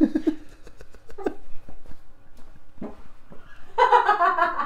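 A man and a woman laughing: quiet, breathy snickers at first, then a louder burst of laughter near the end.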